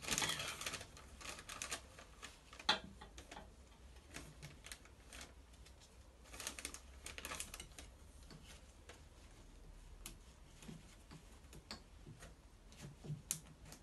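Piston rings being handled and fitted onto an engine piston: a run of light metallic clicks and ticks in small clusters, with one sharper click about three seconds in.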